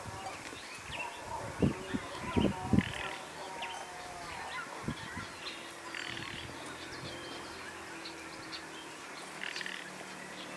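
Birds chirping and calling outdoors in short repeated calls, with a few dull low thumps about two to three seconds in.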